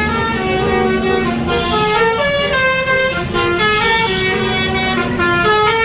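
Tour bus 'basuri' telolet horn playing a melody: a quick run of stepped horn notes, one after another, over a low rumble.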